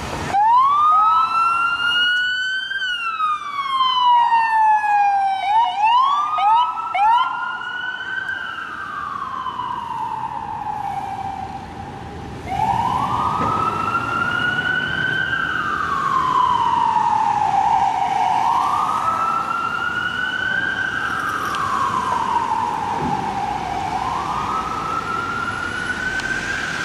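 Police siren on a responding Ford Crown Victoria Police Interceptor, sounding a slow wail that rises and falls over about five seconds per cycle. It is broken about six seconds in by a few quick rising yelp chirps, and it gets louder about halfway through.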